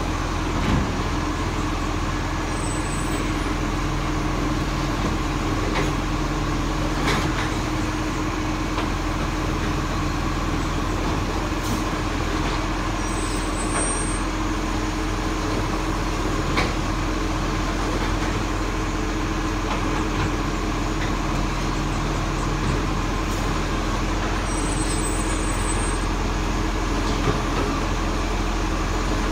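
Side-loading garbage truck's diesel engine running steadily at low speed, with a few short knocks.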